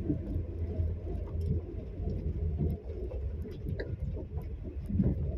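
Vehicle engine idling with a steady low rumble, heard from inside the stopped vehicle.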